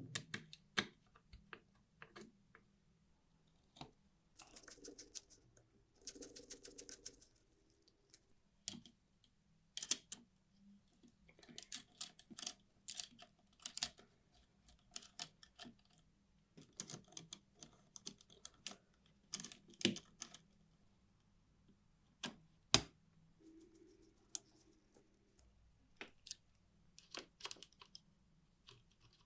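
Irregular clicks and taps of small metal parts being handled, with two brief spells of scraping or rubbing a few seconds in and a short low hum near the end.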